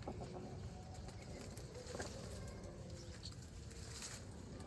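Weaver birds giving short, thin chirps over a steady low rumble, with a few faint clicks.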